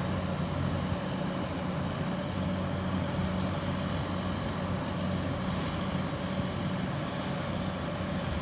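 Bulldozer engine running steadily, a low even drone.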